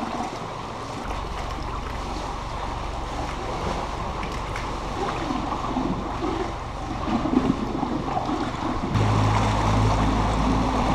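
Sea waves splashing and lapping, over the steady low hum of a motorboat's engine running. About nine seconds in, the engine grows louder.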